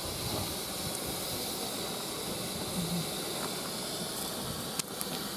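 Steady hiss of steam escaping from GWR Castle-class locomotive no. 4079 Pendennis Castle standing in steam.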